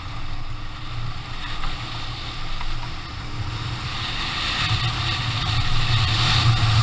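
Adventure motorcycle engine running at a steady pace off-road, with wind and tyre noise over it, growing louder from about four seconds in as the throttle opens.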